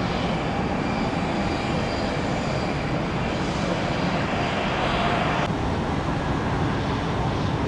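Airbus A319 jet engines running as the airliner taxis: a steady rushing noise with a faint whine. About five and a half seconds in the sound changes abruptly to a duller rush.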